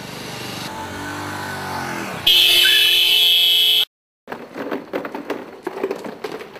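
A motorcycle engine approaching and passing, its pitch bending downward as it goes by. About two seconds in, a loud, shrill, steady blare cuts in over it for a second and a half and stops suddenly. After a brief silence comes a jumble of knocks and scuffling.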